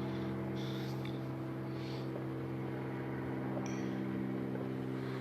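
A steady low hum with an even, unchanging pitch, like a running machine or an electrical unit.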